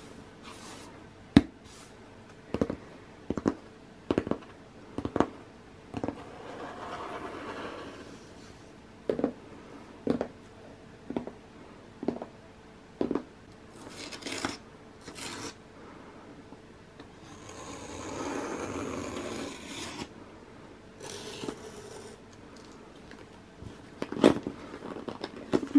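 Cardboard shipping box being handled and opened by hand: scattered knocks and taps on the cardboard, longer stretches of scraping and rubbing, and busier scratching at the packing tape near the end.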